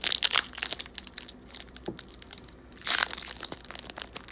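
A sealed trading-card pack wrapper being crinkled and torn open, with loud rustling bursts at the start and again about three seconds in, between lighter crackles.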